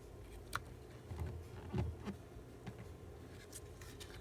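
Quiet handling of craft supplies on a desk: a sharp little click about half a second in, then a few soft bumps and light taps as stamps and paper are moved about.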